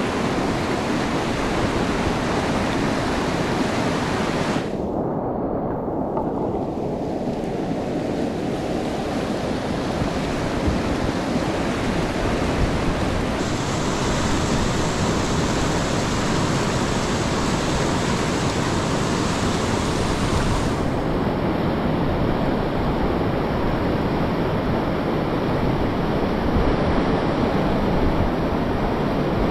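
Whitewater rapids rushing steadily around a kayak running a steep, fast creek, heard up close from the boat. The sound is briefly muffled about five seconds in.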